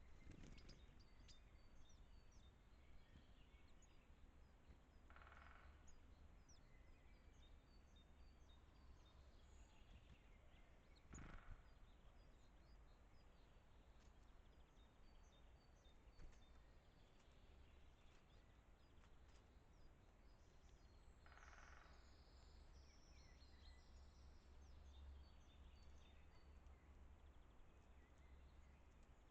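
Faint, high chirps of small forest birds calling on and off, over a low background hum. A single soft knock comes about eleven seconds in, and two brief noisy sounds at about five and twenty-one seconds.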